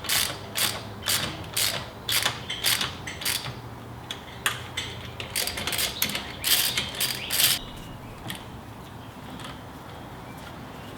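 Hand ratchet wrench being worked in quick strokes, each back-swing a short clicking rasp, about two a second. There are two runs with a short pause between them, and the clicking stops about three-quarters of the way through.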